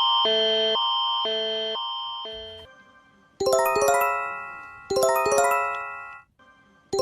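Electronic alert tones. An alternating two-note warble, switching about twice a second, fades out in the first few seconds. After a short gap, a bell-like chime of several quick notes sounds three times, each ringing away.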